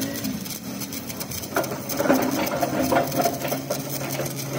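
Electric arc welding on a crankshaft: the arc gives a steady crackling buzz, with a low hum beneath it.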